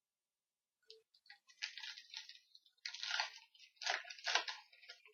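Crinkling and rustling of a trading-card pack wrapper being handled and opened, in irregular bursts that start about a second in and are loudest around three to four and a half seconds.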